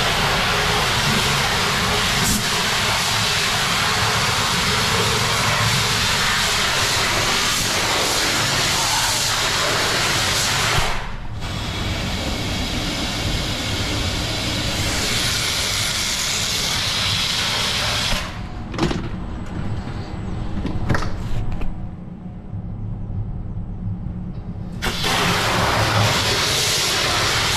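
Water jet hissing and splashing down into the open manhole of a stainless bulk-liquid tanker, rinsing out the last of a thick product. The hiss drops away for several seconds about two-thirds through, leaving a lower rumble and a few knocks, then comes back near the end.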